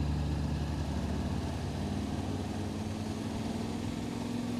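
Yamaha Ténéré 700's parallel-twin engine running while riding, a steady low drone under a rush of wind and road noise.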